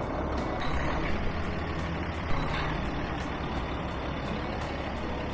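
Semi truck's diesel engine running steadily with a low rumble.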